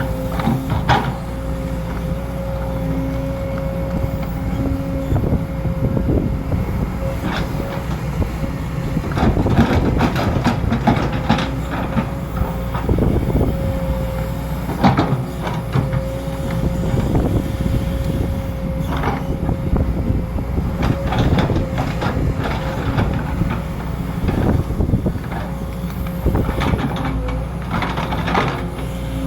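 Sumitomo SH210 hydraulic excavator working: its diesel engine runs steadily with a constant hum, under irregular clanks and knocks as the bucket digs earth for a ditch.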